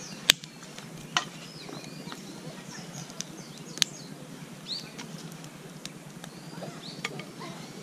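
Campfire of split firewood burning, giving off a handful of sharp crackles and pops, the loudest one right at the start. Birds sing and chirp throughout.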